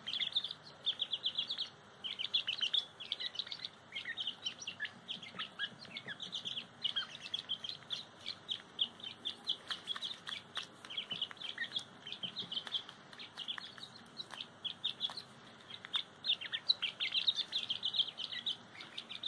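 Young grey francolin (teetar partridge) chicks chirping, a steady stream of short high calls several times a second as they feed.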